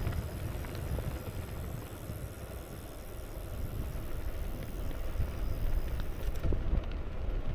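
Wind buffeting the microphone of a moving bicycle, a gusty low rumble that eases a little in the middle and builds again.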